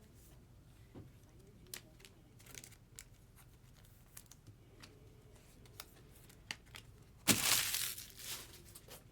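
A trading card pack wrapper being ripped open: a loud tear about seven seconds in, lasting over a second. Before it come scattered soft clicks and rustles of cards being handled.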